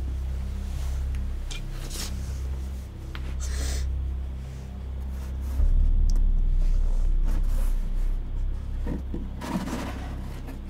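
A cardboard box is handled: scraping and rubbing of cardboard, and near the end a longer rustle as its flaps are pulled open. A low, steady drone sits underneath and swells about halfway through.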